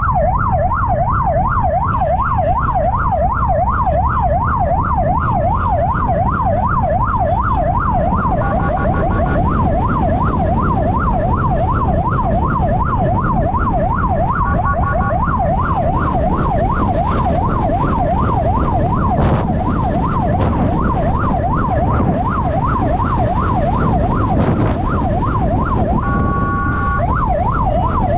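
Police motorcycle's electronic siren sounding a fast, continuous rising-and-falling yelp, broken three times by short steady horn blasts. A low rumble of engine and road noise runs underneath.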